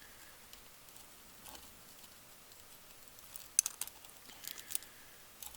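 Faint, scattered ticks and scratches of copper solder braid and a soldering iron tip dragged over a circuit board's BGA pads to wick off leftover solder, with a small cluster of sharper ticks a little past halfway.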